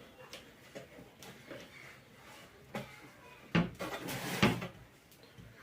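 Hands handling the parts of an opened mixer grinder: scattered small clicks and knocks, then a sharper knock about three and a half seconds in followed by a louder half-second scrape.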